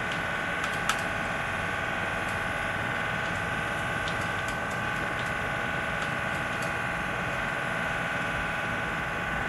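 PlayStation 4 cooling fan running: a steady whir with a constant whine over it, and a few faint ticks, one about a second in.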